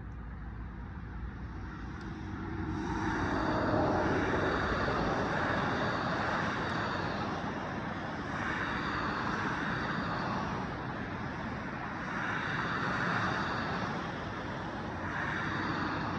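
Steady rushing noise of a jet aircraft passing overhead, swelling about three seconds in and holding, with road traffic beneath it.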